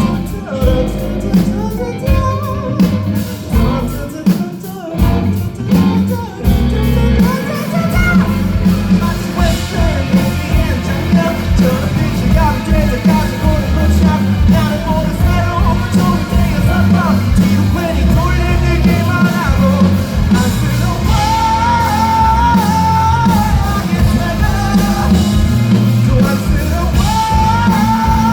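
Live rock band playing: drums, bass and electric guitar with a voice singing over them. The band fills out, fuller and steadier, about seven seconds in.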